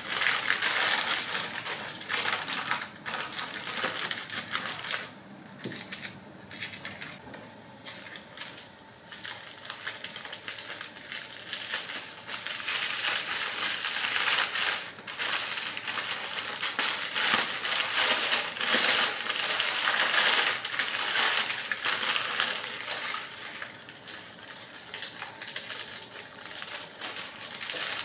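Paper wrapping crinkling and rustling as hands unwrap small cakes, in irregular bursts with a couple of quieter pauses.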